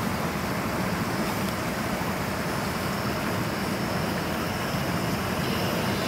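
Portable gas-canister stove burning steadily under a kettle, a low even roar of the burner, mixed with the rush of a mountain stream.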